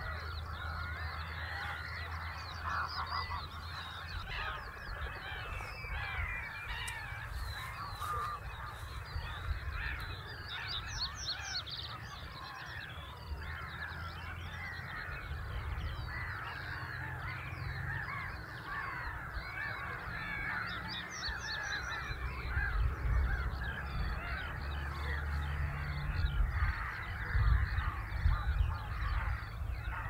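A large flock of wild geese calling, with many overlapping honks in a continuous chorus. A low rumble runs underneath and grows stronger in the second half.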